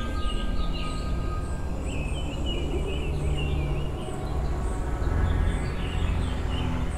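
Small birds chirping and twittering over a steady low rumble; the rumble swells about five seconds in. A faint held tone fades out in the first two seconds.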